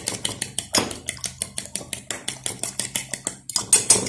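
Eggs being beaten in a bowl: a utensil clicking against the bowl in a quick, steady rhythm of about seven strokes a second, with a louder scrape near the end.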